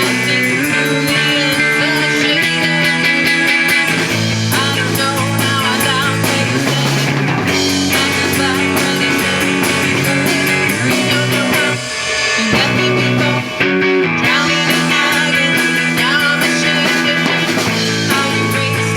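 Live rock band playing: guitars over a drum kit, with two short breaks a little past the middle.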